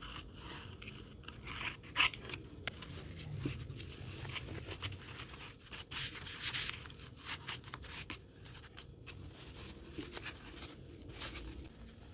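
Corrugated cardboard and cotton fabric being handled, rubbed and pressed by hand while hot-gluing: rustling and scraping with scattered light clicks, one sharper click about two seconds in.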